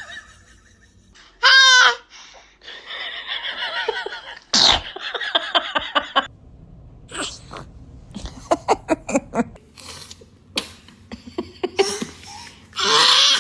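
A baby sneezing, with a sudden loud sneeze about four and a half seconds in and another near the end, and laughter and short high-pitched vocal sounds between the sneezes.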